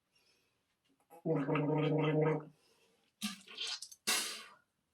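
A person gargling mouthwash: a voiced, bubbling gargle held for about a second, then a few short splashing bursts of spitting it out.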